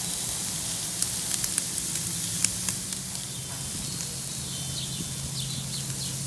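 Beef steaks and skewers sizzling on a charcoal grill, with a few sharp crackles about a second to two and a half seconds in, over a steady low hum.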